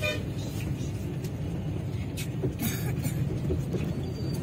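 Steady bus engine and road rumble heard from aboard a bus moving through busy city traffic. A vehicle horn toots briefly right at the start, and there are a couple of short hisses midway.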